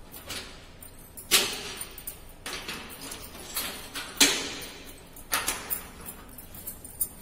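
Metal knocks and clanks from handling the lid and top fittings of a vertical stainless-steel autoclave: a few sharp knocks, the loudest about a second in and about four seconds in, with smaller ones after.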